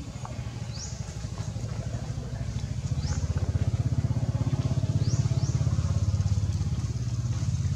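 A motor engine runs with a low, pulsing rumble, growing louder from about three seconds in and staying strong to near the end. Short, high, rising chirps come a few times over it.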